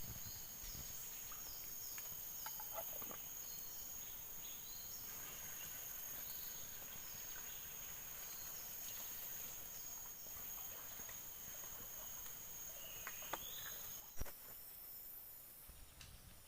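Night-time tropical swamp-forest insect chorus: a steady high-pitched drone with many short falling chirps repeating over it. A single sharp click comes about fourteen seconds in.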